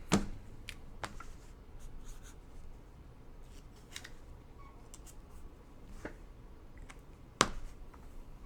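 Trading cards being handled on a table: scattered sharp clicks and light rustles, the loudest right at the start and another about seven seconds in.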